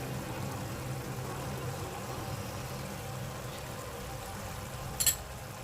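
Steady low mechanical hum in the kitchen while the pork filling cooks in the pan, with one short sharp clink about five seconds in.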